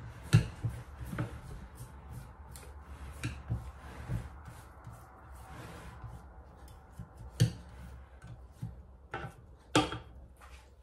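Spatula scraping chopped onion down the inside of a Thermomix's stainless-steel bowl, with scattered knocks and taps of the spatula against the bowl. The loudest knocks come near the start, about two-thirds of the way through, and near the end.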